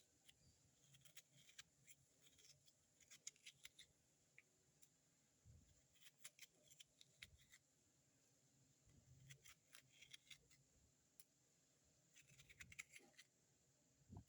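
Faint, irregular clicks and scrapes of a utensil digging out the core of a pear, hollowing a hole in its middle.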